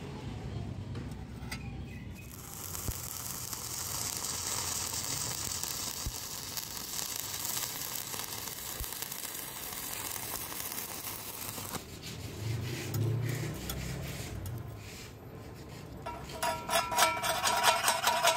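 Stick-welding arc crackling and hissing steadily as a 2.6 mm electrode at 65 amps DCEP lays a bead on thin steel plate. Near the end a chipping hammer strikes the bead in a quick run of ringing metal taps, knocking off the slag.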